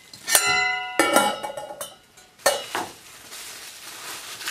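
Stainless-steel Turkish double teapot clinking as its upper pot is handled and set onto the lower pot: a sharp clink about a third of a second in rings on briefly like struck metal, followed by more knocks and rattling over the next two seconds.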